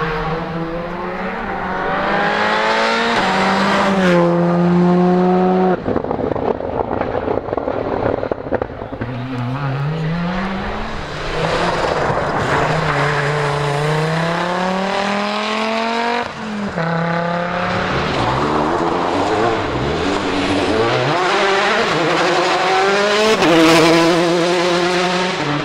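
Rally cars, among them a Škoda Fabia R5, an Audi quattro and a Peugeot 208 T16, driven flat out one after another on a stage. Each engine revs high, climbing and dropping as the driver shifts gears and lifts, with tyres scrabbling on a loose surface.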